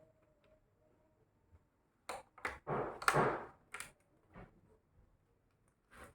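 A quick run of sharp clicks and knocks starting about two seconds in, with a short rustling noise among them, then a few faint ticks.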